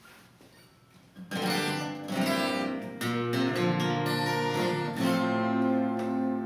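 Acoustic guitar strummed, starting about a second in: chords struck and left ringing, a new chord every second or so.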